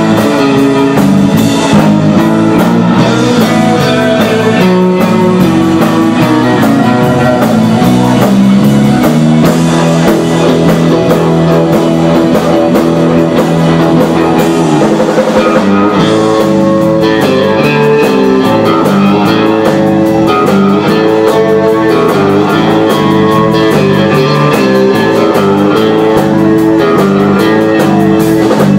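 Live rautalanka band playing an instrumental: twangy electric guitar melody over bass guitar and drum kit, loud and continuous.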